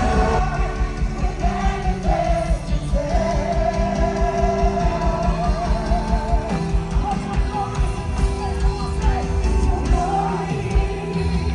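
Music with a singer's voice: a wavering sung melody over a steady bass beat.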